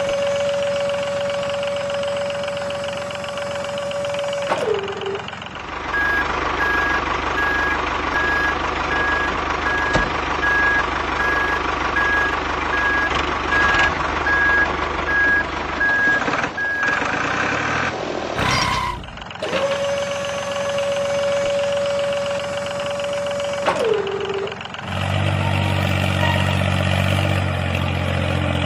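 Miniature tractor sounds: a steady mid-pitched whine that drops in pitch as it stops, heard twice. Between the two whines come regular reversing beeps, about two a second, over a mechanical hum. Near the end a low engine idle sets in.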